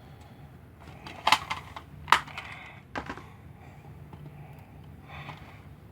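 Plastic Blu-ray cases being handled: three sharp clicks or taps, under a second apart, with soft rustling and sliding between them.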